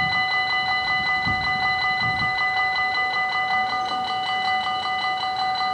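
Level crossing warning bell ringing in rapid, even strokes on a steady set of tones while the barriers come down, the signal that a train is approaching and the crossing is closing. A low rumble is heard in the first couple of seconds.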